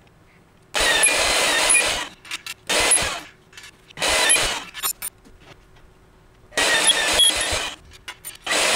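Magnetic drill press drilling into a steel plate in about five short bursts of a second or less, with pauses between them.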